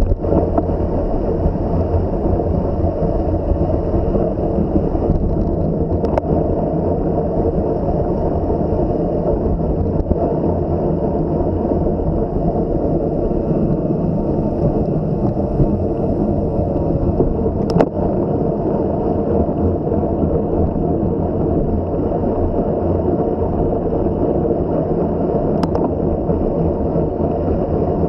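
Steady rush and rumble of wind buffeting the microphone of a camera riding on a moving bicycle, mixed with tyre noise, with three brief sharp clicks spread through it.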